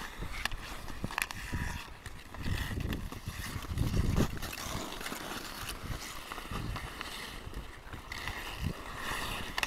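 Ice hockey on an outdoor rink: skate blades scraping the ice and a few sharp clacks of sticks and puck, with wind rumbling on the microphone, loudest about four seconds in.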